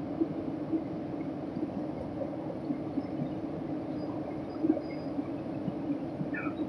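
Steady drone of an airliner's engines and rushing air heard inside the cabin while descending, with a few small knocks, one sharper about two-thirds of the way through.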